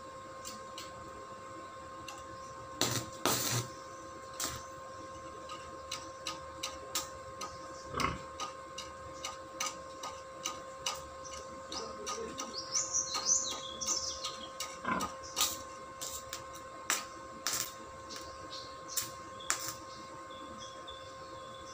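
Scattered sharp metallic clicks and taps, roughly one a second and a few clustered together, from work at a steel gate frame with a stick welder's electrode holder, over a steady electrical hum. Birds chirp briefly about halfway through.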